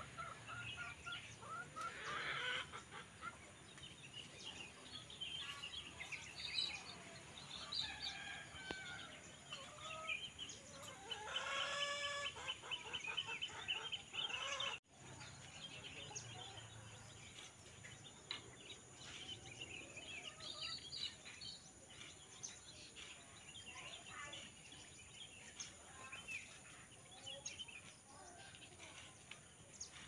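Rural outdoor ambience of birds chirping and calling, with a rooster crowing once, loudest partway through. The sound drops out for a moment at the middle.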